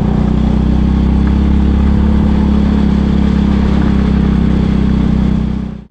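Single-cylinder four-stroke engine of a 2001 Honda Biz 100 running steadily under load as the motorcycle climbs a steep hill.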